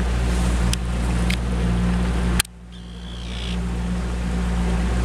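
Motorboat engine running with a steady low hum, with a few sharp clicks. About two and a half seconds in, right after a click, the sound drops suddenly and builds back up over the next second or so.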